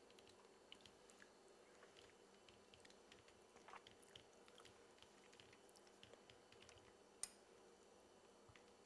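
Near silence: faint room tone with scattered tiny clicks, and one sharper click about seven seconds in.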